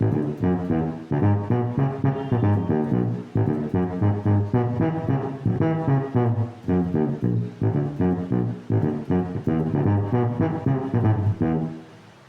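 Electric bass played through a Zoom B1X Four multi-effects pedal with a tuba-emulation patch, plucking a bouncy line of short, detached staccato notes in a low register, the way a tuba plays in banda music. It dies down briefly near the end.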